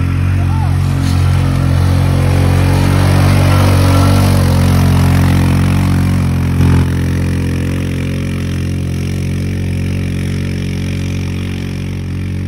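ATV engine running loud and steady at one engine speed, with a single short knock a little past halfway.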